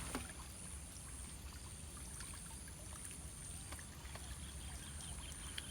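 Quiet outdoor ambience: a low even rumble and a steady high hiss, with a few faint small clicks.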